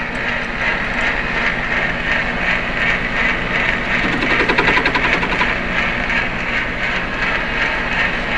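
Small benchtop metal lathe running steadily, its motor and drive giving a constant hum and whir. About four seconds in there is a brief, rougher, rapidly rattling stretch.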